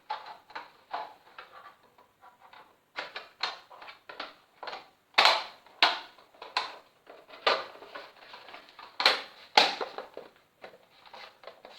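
Hard plastic parts of an LED ring light handled and snapped into place: a run of irregular sharp clicks and clatters, the loudest about five to ten seconds in.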